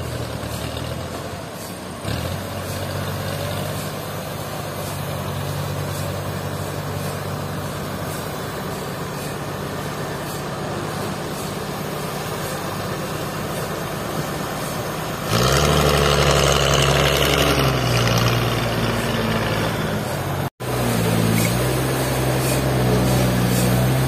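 Forklift engine running steadily under the load of a large log, growing louder about two-thirds of the way through. The sound drops out for an instant near the end, then the engine carries on.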